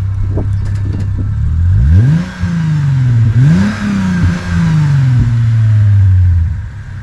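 A 2006 Lexus IS350's 3.5-litre V6, running through its new exhaust with an MForce tune, drones steadily and then revs up quickly twice, about two and three and a half seconds in, each time falling back more slowly.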